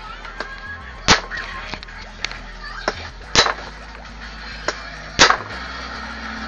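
Sharp, irregular clanks of hand tools and parts during reassembly of a Suzuki K6A transmission, about six in all, the loudest about a second, three and a half and five seconds in, over background music.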